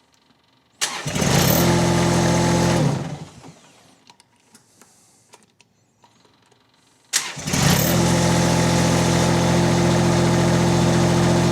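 Kubota D1105 three-cylinder diesel engine of a mini skid steer being started: it catches about a second in, runs for about two seconds and dies away. It is cranked again a few seconds later, catches at once and settles into a steady idle.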